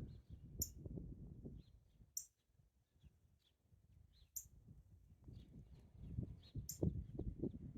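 Small birds chirping outdoors. A short, very high chirp repeats about every two seconds, with fainter little chirps in between, over a low rumble on the microphone.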